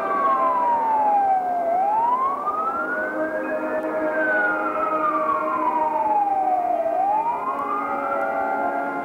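A siren wailing, its pitch sweeping slowly down and up twice, about three seconds per sweep. Under it the marching band's wind section holds sustained chords.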